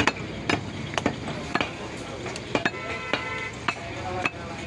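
Large butcher's knife knocking against a wooden tree-stump chopping block as beef is sliced: several sharp knocks at irregular intervals.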